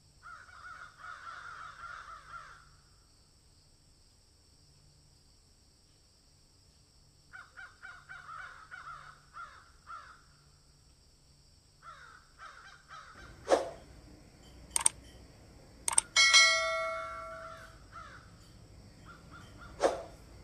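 Harsh, cawing animal calls in bursts of a couple of seconds each. Several sharp clicks come in the second half, and just after the loudest click a longer pitched call rings with many overtones. A faint steady high whine sits underneath throughout.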